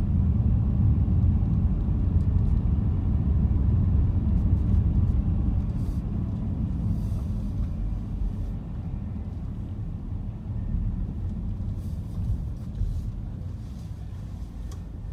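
Low rumble of a car's engine and tyres heard from inside the cabin while driving, growing quieter about halfway through as the car slows.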